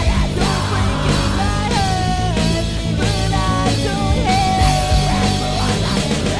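Rock song recording: a full band with steady drums and bass under a melody line that bends and is held for a long note.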